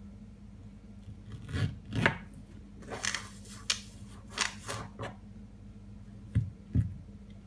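A heated kitchen knife cutting through a banana and knocking on the worktop: a series of short chops and scraping strokes, the loudest about two seconds in. Two dull thumps follow near the end.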